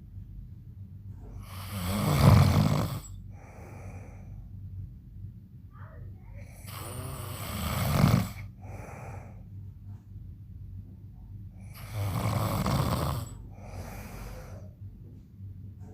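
A man snoring loudly in his sleep: three loud snores about five seconds apart, each followed by a shorter, softer breath sound.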